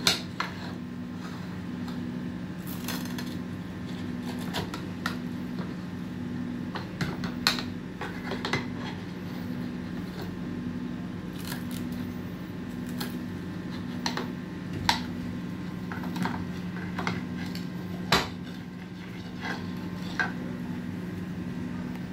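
A large kitchen knife cutting an omelette on a ceramic plate: irregular sharp clicks and taps of the blade striking the plate, over a steady low hum.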